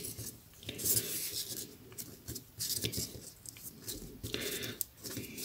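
Rolled-newspaper weaving tubes rustling and rubbing softly as hands pull them through and tighten a woven rose, with scattered faint scratchy ticks.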